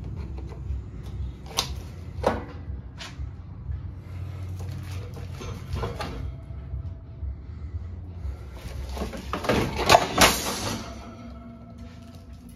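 Clunks, clicks and rattles of old metal ceiling fans and wire shelving being handled: a few separate sharp knocks, then a louder burst of clattering about nine to ten and a half seconds in, over a low steady rumble.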